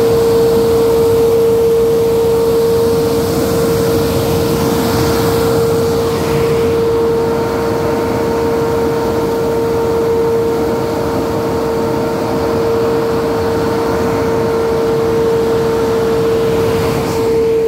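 Nut sweeper running steadily: a constant high whine over a rough mechanical rumble.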